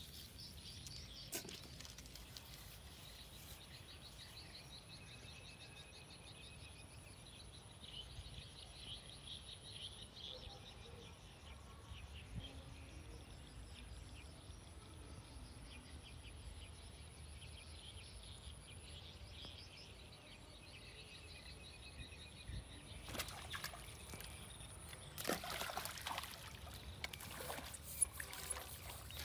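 Quiet outdoor ambience with a faint, fast, high trilling throughout, then splashing and rustling in the weedy pond water over the last few seconds, with the surface churned.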